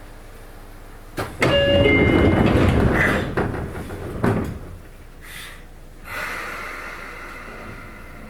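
Sotetsu 8000-series electric train's passenger doors closing: a click about a second in and a short door chime, then the loud rattle of the old, unmodified door mechanism, ending in a thud as the doors shut about three seconds later. A steadier hiss starts about six seconds in.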